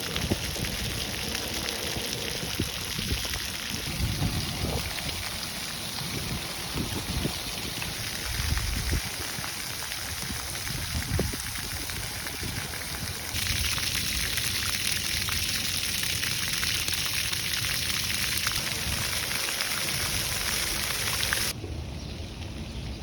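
Water jets of a splash pad spraying and pattering onto the wet pad, a steady rain-like hiss. The spray grows louder a little past halfway and drops back shortly before the end.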